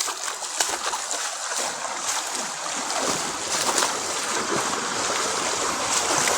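Rushing water, a steady hiss that grows louder and fuller about halfway through.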